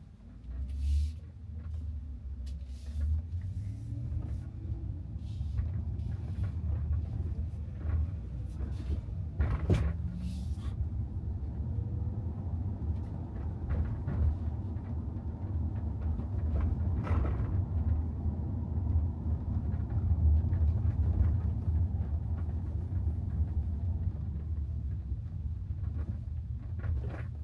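Tesla Model Y electric car driving: a steady low road and tyre rumble with no engine note. A faint rising tone comes in a few seconds in and again about ten seconds in, and a few short knocks are heard, the sharpest about ten seconds in.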